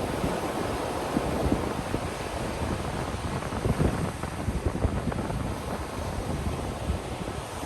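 Ocean surf washing steadily onto a beach, with wind rumbling on the microphone; the wash swells slightly a couple of times.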